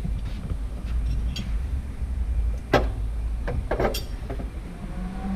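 Sharp metallic clinks and knocks of tools and parts during the mounting of an engine and gearbox, one loud knock a little under three seconds in and two more about a second later, over a low rumble that fades about three and a half seconds in.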